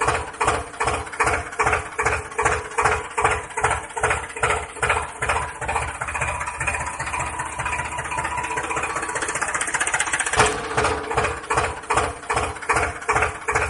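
Tractor engine idling with a regular chug of about two to three beats a second, evening out into a steadier run for a few seconds in the middle before the chug returns. It is a dubbed engine sound: the tractors shown are toys.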